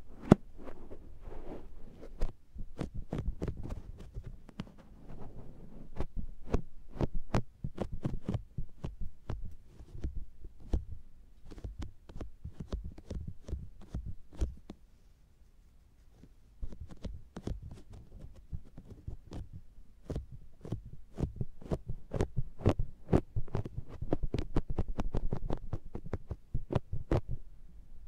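A makeup sponge pressed and patted against the silicone ear of an SR3D binaural microphone, giving close, muffled pats with sticky, suction-like pops, several a second, and a short lull about halfway through.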